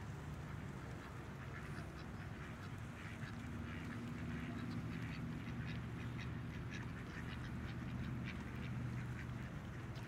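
Mallard ducks on a pond, calling quietly while dabbling at food on the surface: a scatter of small clicks and splashes from their bills over a steady low hum.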